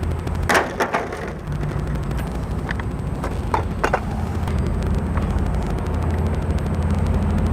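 A few sharp clicks and knocks of a screwdriver and plastic trimmer housing being handled while case screws are worked loose, over a steady low mechanical hum.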